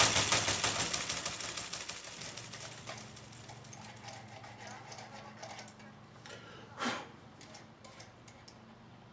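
Typewriter typing out a line of text, a rapid even run of clicks that fades away over the first two to three seconds. After it comes a faint, quiet stretch with one sharp click about seven seconds in and a few light ticks.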